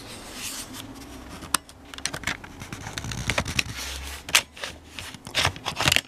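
Plastic scraping and several sharp clicks as a Lenovo ThinkPad T420 laptop's battery is unlatched and slid out of its bay.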